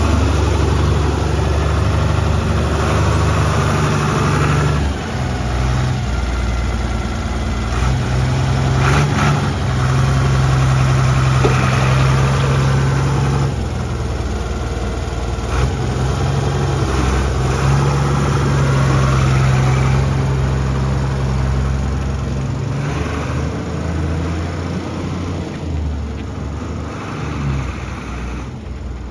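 Ford Cargo 0813 truck's diesel engine running close by, its speed rising and falling several times as the truck moves off, then fading near the end as it pulls away down the road.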